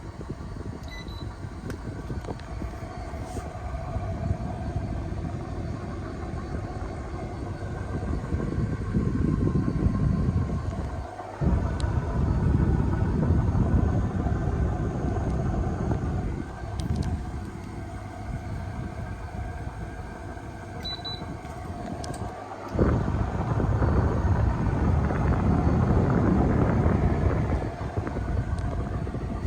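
Panasonic air conditioner running: a steady hum with several faint held tones under a heavy low rumble that swells and falls, cutting out briefly twice, about eleven and twenty-two seconds in.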